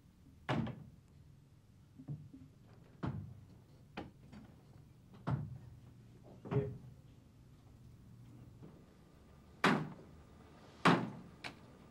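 A series of about nine sharp knocks and thuds, spaced irregularly a second or so apart, the loudest near the end.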